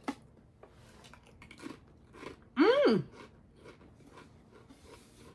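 Close-up chewing of Pringles potato crisps, a run of small crunches through the mouth. About two and a half seconds in, a short hummed "mm" of approval that rises then falls in pitch.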